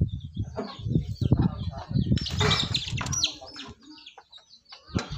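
Isuzu Trooper's 4JX1 four-cylinder turbodiesel turning over with irregular low chugging, dropping to a quieter gap about three and a half seconds in. The engine is slow to start, a long-cranking hard-start fault.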